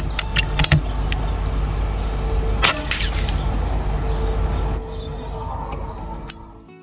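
A single shot from a moderated .22 PCP air rifle about two and a half seconds in: one sharp crack with a short tail. Under it run steady cricket chirping and a low rumble, with a few lighter clicks near the start.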